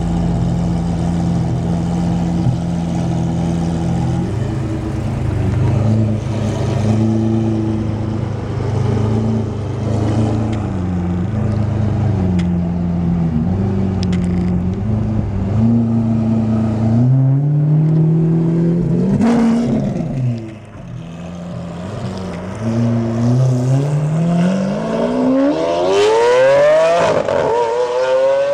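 Lamborghini Aventador's V12 idling, blipped a few times as it pulls away, then revving up steeply twice as it accelerates hard in the second half, the last pull the loudest.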